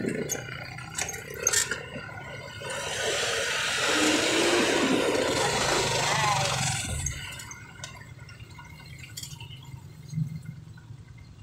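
Wind and road noise heard from inside a moving vehicle with open sides: a rushing noise swells up a few seconds in, stays loud for about four seconds, then dies away, with a few light clicks and knocks.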